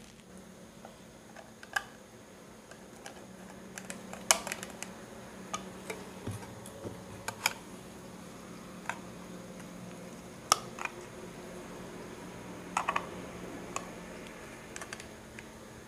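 Scattered light clicks and taps of plastic and metal as an LED bulb's housing and its LED board are handled and fitted back together, over a faint steady hum.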